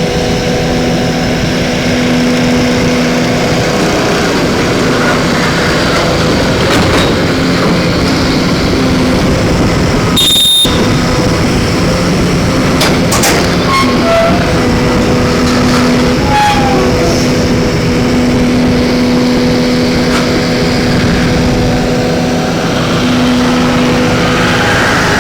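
Excavator diesel engine running steadily at a constant pitch with a low hum, with a brief sharp high-pitched sound about ten seconds in.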